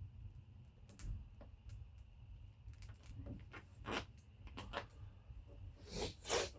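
Faint scattered clicks and scrapes of hands and tools working a large vinyl decal onto a wet car door, with a louder rustling scrape about six seconds in.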